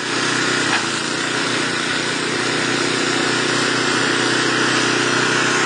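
Snowblower engine running steadily.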